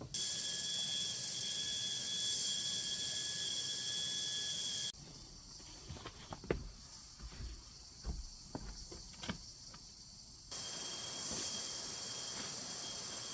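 Steady high insect drone with a thin, even whistling tone, typical of forest crickets or cicadas. About five seconds in it cuts abruptly to a quieter stretch of scattered taps and knocks, then the insect drone returns just as abruptly near the end.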